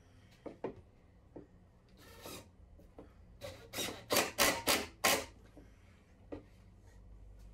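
A hand rubbing against the wooden cabinet: a few light knocks, then a string of five or six quick scraping strokes in about two seconds.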